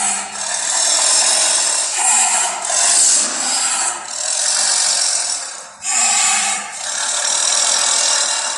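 Saber-toothed cat sound effect: a run of raspy, hissing snarls, each lasting a second or two, with sharp starts and no clear pitch.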